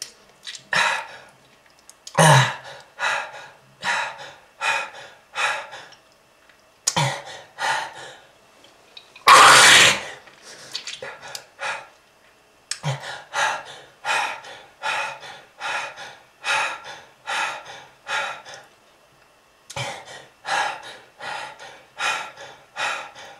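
A smoker coughing in repeated fits. Each fit opens with a hard cough and runs on in a string of shorter coughs, about two a second. One long, harsh hack just past nine seconds in is the loudest.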